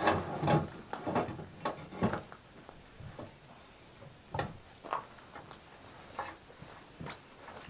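Irregular clicks and knocks of metal clamp hardware on a sawmill track being worked by hand, a quick run of them in the first two seconds, then a few scattered single knocks.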